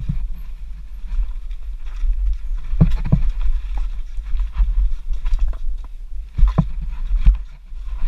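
Downhill mountain bike rattling over a rock garden: the tyres, suspension and chain clatter constantly, with sharp clunks as the wheels hit rocks, the loudest a pair about three seconds in and a few between six and seven and a half seconds. A steady low rumble of wind on the mounted camera's microphone lies under it all.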